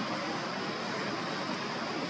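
Steady, even hiss of outdoor background noise, with no distinct calls or knocks.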